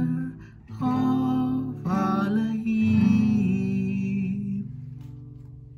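Acoustic guitar strummed with a voice singing the song's closing words, ending on a long held note with vibrato; the last chord then rings out and fades away as the song ends.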